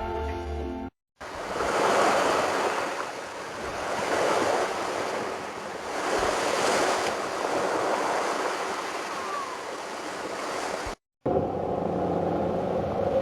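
Sea surf washing in, swelling and ebbing every two to three seconds. It is framed by a snatch of music at the start and a different, steadier sound near the end, each set off by a brief cut to silence.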